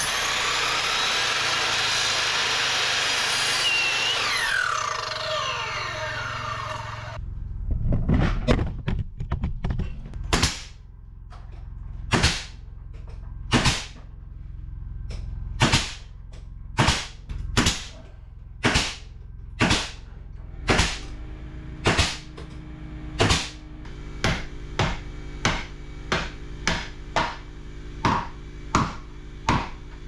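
A sliding miter saw running through a wooden trim board, its motor winding down in falling pitch before it stops abruptly about seven seconds in. Then a pneumatic nail gun fires a long series of sharp shots fixing trim boards, about one a second at first and about two a second near the end.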